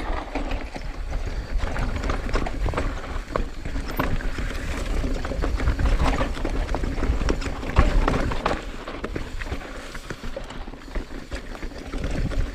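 Mountain bike descending rocky singletrack at speed: tyres crunching over rocks and dirt with constant small knocks and rattles from the bike, over a steady low rumble of wind on the microphone.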